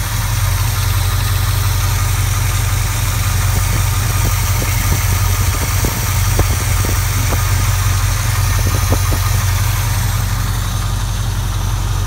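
Carbureted Chevy engine, brand new, idling steadily, with its PCV system plugged for a crankcase vacuum test. A few light clicks come through in the middle.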